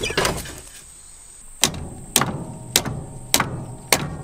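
A short clatter, then five sharp knocks on metal, each with a brief ring, evenly spaced at about one every 0.6 s.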